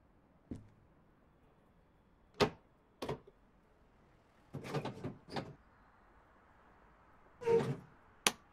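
A handful of separate short knocks and clunks, the loudest about two and a half seconds in and a cluster of them around the fifth second, with near silence between them.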